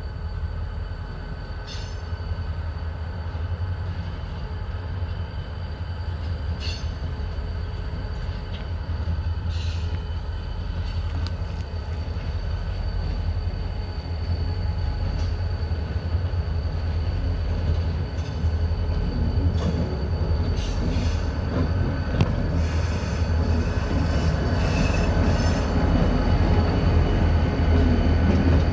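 Diesel freight locomotive approaching slowly on a tight curve, its deep engine rumble growing louder, with the wheel flanges squealing and screeching against the curved rail in short high bursts that come thicker near the end.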